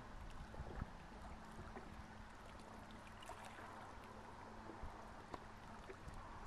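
Faint outdoor ambience: a fluctuating low rumble of wind on the microphone, with a steady low hum and a few light ticks.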